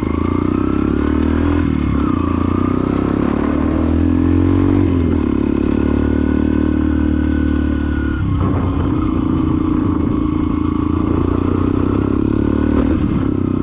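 Yamaha XTZ 125 single-cylinder four-stroke engine running through a Fortuna F1 mini trioval aftermarket exhaust while being ridden. The engine pitch climbs and dips several times, drops sharply about eight seconds in, then runs steady.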